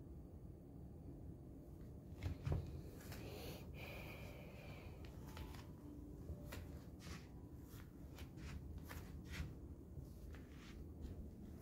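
Quiet indoor room tone with small handling noises: scattered soft clicks and rustles, and a dull thump about two and a half seconds in.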